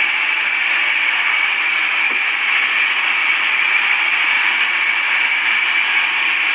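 Sawmill saw running steadily, a constant high whine over an even rushing noise.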